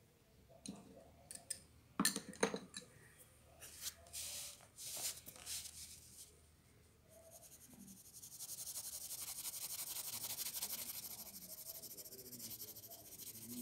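Graphite pencil scratching on paper in quick back-and-forth shading strokes, steady from about halfway through. Before that, a few sharp clicks and rustles of the paper and pencil being handled, loudest about two seconds in.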